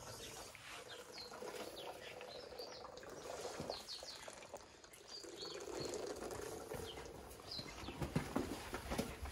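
Albino baby elephant sucking milk from a bottle, with wet sucking and smacking clicks that are loudest near the end. Birds chirp repeatedly in the background.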